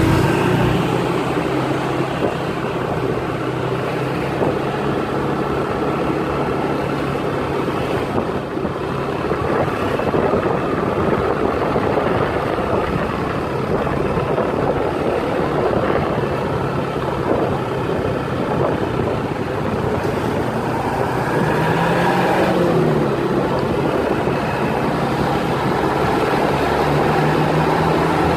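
Motor vehicle engine running steadily with road noise, its pitch briefly rising and falling a little after twenty seconds.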